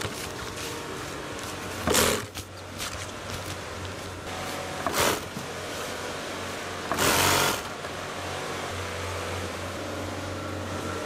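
Steady low hum of a garment-factory workroom, broken by four short, loud bursts of noise, the longest over half a second: synthetic tent fabric being handled and run through an industrial sewing machine.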